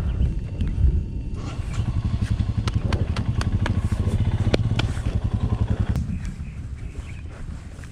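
Royal Enfield Himalayan's single-cylinder engine running at low revs with an even, rapid thump, starting about a second in and fading away near the end. A few sharp clicks and clatter come in the middle.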